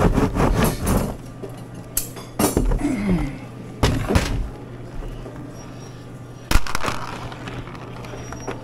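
Wooden gooseberry cutter worked rapidly back and forth, a fast rhythmic rattle of about five strokes a second that stops about a second in. Then a few sharp knocks and clicks as the hard candy pieces are handled on the machine, over a steady low hum.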